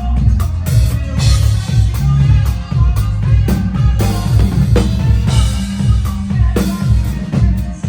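Norteña band playing an instrumental passage, the drum kit keeping a steady beat with bass drum and rimshots under a bass line and sustained melody notes.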